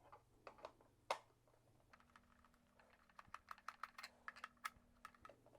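Screwdriver taking the housing screws out of a Black & Decker BD170 orbital sander: faint, irregular light clicks and taps, coming quicker in the second half.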